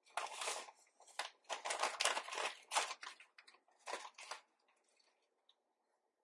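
Soy sauce poured onto brown sugar and starch in a saucepan of water, heard as a run of short, irregular splashy rustles that die away after about four and a half seconds.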